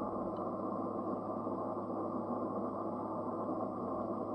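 Steady static hiss of band noise from a Yaesu FTDX3000 HF transceiver's receiver, cut off above the receive filter so it has no treble, with a low hum underneath.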